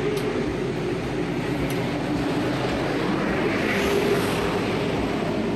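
Fire truck going past close by: a loud, steady engine and road noise that builds to its loudest about four seconds in.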